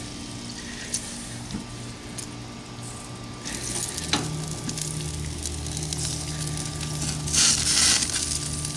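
Bacon frying in a skillet on a gas grill, a steady sizzle with a couple of light clicks. About seven seconds in, a louder rush of hiss.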